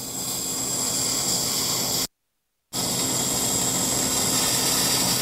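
Handheld laser welder running a bead on carbon steel sheet without filler wire: a steady hiss of argon shielding gas and weld with a low steady hum under it. The sound drops out completely for about half a second about two seconds in, then resumes.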